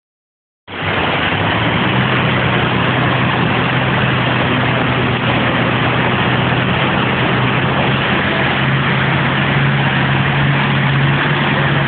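Automatic car wash running: a steady rushing noise with a low, steady hum under it, starting abruptly about a second in.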